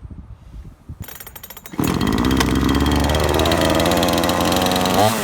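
Sportsman GCS5220 two-stroke gasoline chainsaw, freshly primed, pull-started: about a second of starter-cord cranking, then the engine catches and runs steadily at a high idle, rising briefly near the end.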